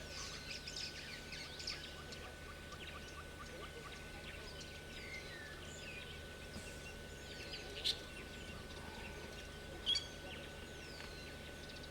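Wild birds calling: scattered short chirps and whistles, with two sharper calls near the end, over a faint steady whine and hum.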